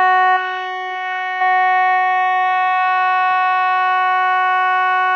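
Electronic keyboard holding one steady, unwavering siren tone in imitation of Sweden's "Hesa Fredrik" civil defense warning siren. It dips in loudness about half a second in and comes back up about a second later.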